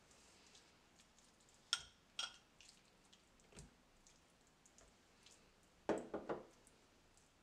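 A metal spoon clinks sharply against a small glass bowl twice while scooping tuna, followed by a soft knock. Near the end comes a short burst of scraping and soft dabbing as the spoon spreads the tuna over raw dough.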